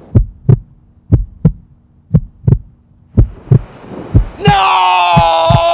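Heartbeat sound effect: slow paired lub-dub thumps, about one pair a second. About four and a half seconds in, a long, held wailing cry sets in loudly over the heartbeat.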